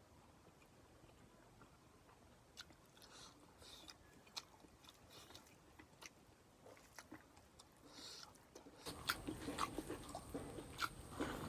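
A person chewing and biting food close to the microphone, with soft wet clicks and smacks, faint at first and louder and busier about nine seconds in.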